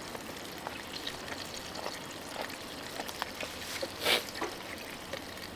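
Greasy burgers sizzling in a pan, a steady hiss with scattered small pops and a brief louder sound about four seconds in.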